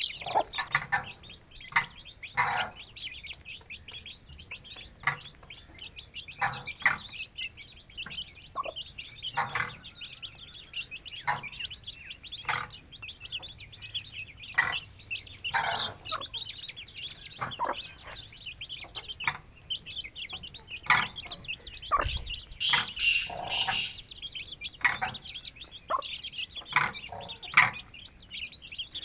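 Aseel hen clucking in short, separate calls while her chicks peep continuously around her, with a louder flurry of high peeping about three-quarters of the way through.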